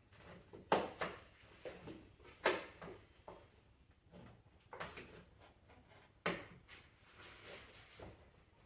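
Plastic air-intake parts being unclipped and pulled off an engine bay: four sharp clacks about two seconds apart, with quieter rattling and shuffling between them.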